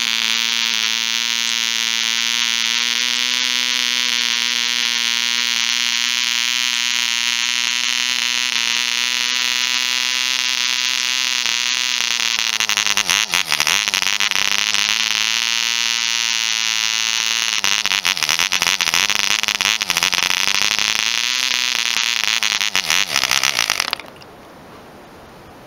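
Half-size replica ED Bee Mk 1 0.47 cc two-stroke model diesel engine running flat out with a steady high buzz. About halfway through, as its compression screw is adjusted, the speed dips and recovers several times and the running turns rough and crackly, then the engine cuts out suddenly near the end.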